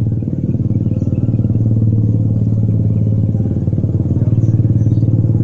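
A motor running steadily close by: a loud, low, even hum with a fast regular pulse.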